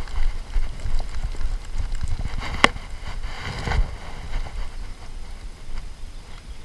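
Low, uneven rumble of wind buffeting the microphone, with one sharp click about two and a half seconds in and a brief rush of noise about a second later.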